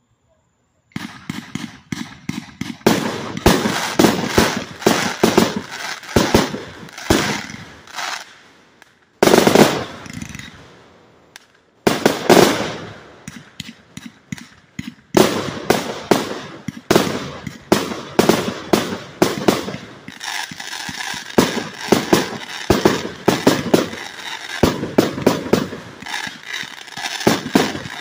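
Super Mom 191-shot consumer firework cake firing: a rapid run of launch thumps and aerial bursts, starting about a second in, with two brief lulls near the middle before the shots come thick and fast again.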